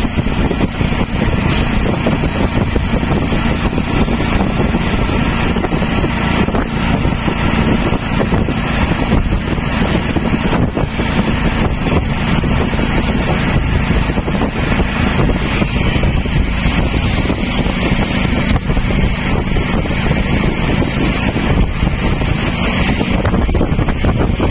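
Auto-rickshaw engine running steadily under way, heard from inside its open-sided cabin, with wind buffeting the microphone.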